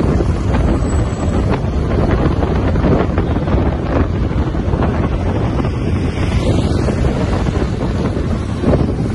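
Loud, steady wind rumble buffeting the microphone of a camera moving along an open road.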